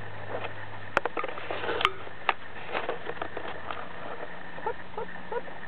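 Scattered light clicks and rustles of a chinchilla moving about its wire cage on a wooden log and bedding, with two sharp clicks about a second and two seconds in and a few short chirps near the end, over a steady low hum.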